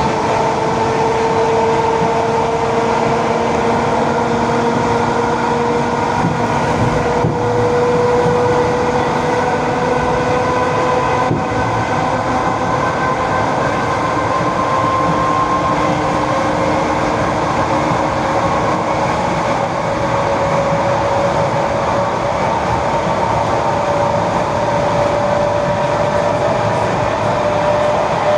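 ED4M electric train running along the track: a steady rumble of wheels on rails with a whine from the traction drive that creeps slowly upward in pitch.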